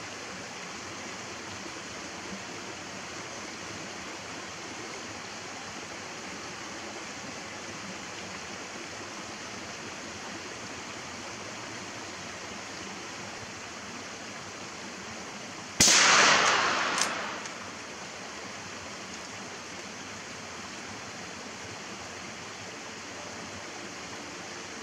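A single rifle shot, a sudden loud crack whose report dies away over about a second and a half, followed about a second later by a short sharp click. A steady rushing background noise runs underneath.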